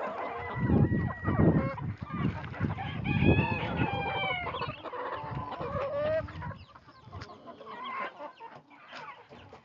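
Flock of backyard chickens clucking and squawking close by, with low thumping and rustling through the first few seconds. The calls thin out and grow quieter after about six seconds.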